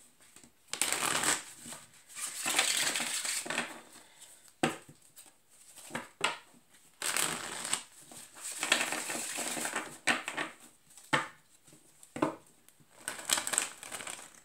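A tarot deck shuffled by hand: two longer stretches of card rustling, one about a second in and one midway, then a few sharp taps as the cards are knocked together.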